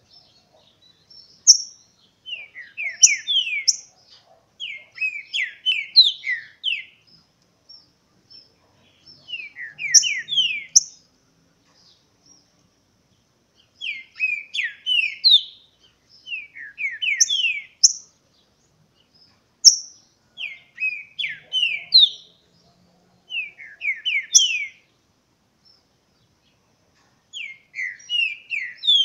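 Green-winged saltators (trinca-ferro) singing their short contest song: phrases of several quick, down-slurred whistled notes with a few higher sharp notes, repeated again and again with short pauses between.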